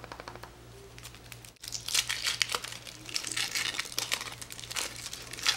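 Foil wrapper of a Yowie chocolate egg being peeled off by hand: crinkling and crackling foil, faint at first and much louder from about a second and a half in.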